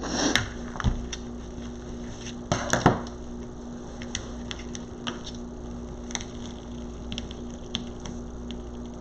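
Ribbon being handled and twisted onto a wreath: two brief rustles, one at the start and one about two and a half seconds in, then scattered light clicks and taps over a steady low hum.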